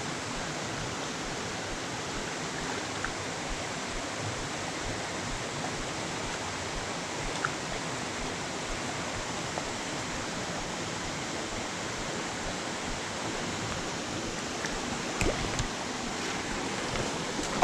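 Creek water rushing steadily, with a few faint knocks near the end.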